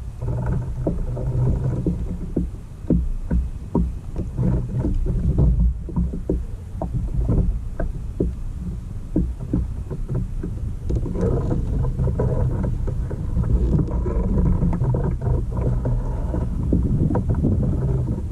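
Water sloshing and slapping against the hull of a NuCanoe Pursuit fishing kayak under way, over a heavy low rumble, with frequent short knocks and splashes throughout.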